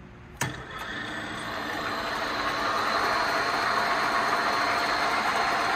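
A click about half a second in, then a Mikron 102-05 gear hobbing machine's drive and gear train starting up with a steady mechanical whir that grows gradually louder as the machine speeds up.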